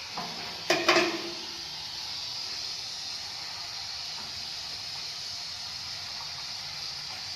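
Combined grass chopper and pellet-press machine running steadily, a constant hiss over a low hum, as it is tried out making pellets. A short clatter of knocks comes about a second in.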